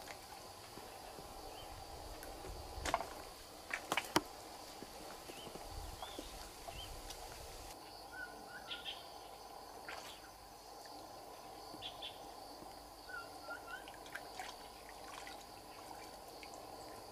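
Quiet riverside ambience: a steady insect drone with scattered short bird chirps, and a few sharp clicks about three and four seconds in.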